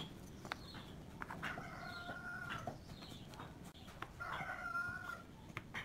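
A rooster crowing twice, each crow a long held call. A few light clicks and knocks of small wooden pieces being set down on a board come in between.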